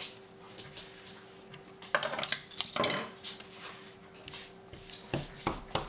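A hand brushing treat crumbs across a wooden tabletop, with rubbing swipes and the clatter of metal kitchen scissors being moved on the table, busiest about two seconds in. Two sharp knocks near the end.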